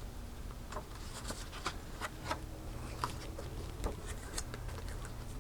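Faint room tone with a low hum and scattered small clicks and rustles.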